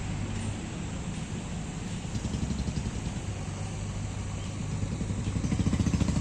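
An engine runs steadily, in the manner of heavy construction machinery. A rapid pulsing grows louder near the end.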